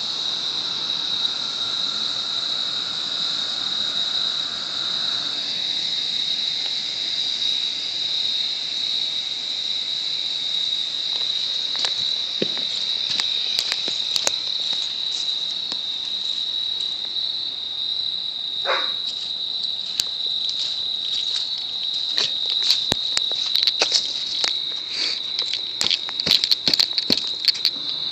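Crickets chirping in a steady high trill throughout. A faint hiss stops about five seconds in, and scattered sharp clicks come near the end.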